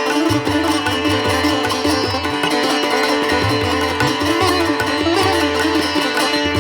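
Instrumental background music: a wavering melody over a steady held drone, with a low pulsing beat.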